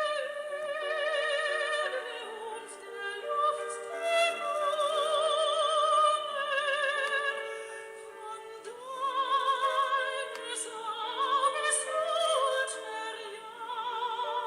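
Operatic music: a high voice sings long held notes with strong vibrato over sustained accompaniment.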